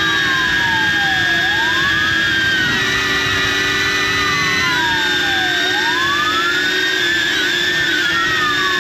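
DJI Avata FPV drone's propellers and motors whining steadily close to the camera. A fire apparatus siren wails underneath it in slow sweeps, each gliding down in pitch and then rising back more quickly, about twice.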